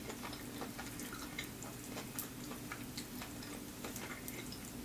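Faint, scattered wet clicks and ticks of eating a lemon pepper chicken wing, the meat being pulled off the bone by hand, over a faint steady hum.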